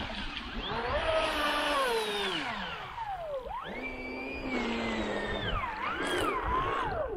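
Brushless outrunner electric motor of a Kyosho Jetstream 888VE RC speedboat whining, its pitch swooping down and back up several times as the throttle is eased and opened again. It is lowest about three and a half seconds in and falls away at the end.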